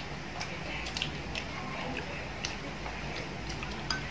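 Scattered light clicks of chopsticks against ceramic rice bowls and plates as people eat, a few sharp taps a second at irregular intervals.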